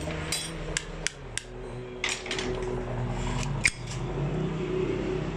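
Sharp metal clicks and clinks of hand tools and small steel parts on a diesel fuel injection pump being dismantled, about seven separate ticks, the loudest about two-thirds of the way through, over a steady low hum.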